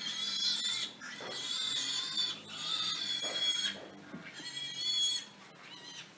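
Pigs squealing: about four long, high-pitched squeals in a row, each about a second long, growing quieter near the end.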